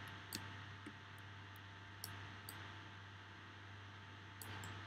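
A few faint computer-mouse clicks over a steady low hum and hiss of the recording room.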